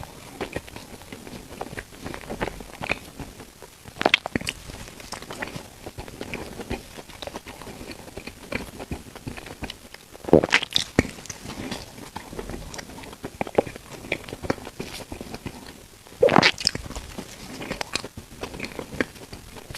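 Close-miked eating of bread: crunchy bites about six seconds apart, with soft chewing crackles and mouth clicks between them.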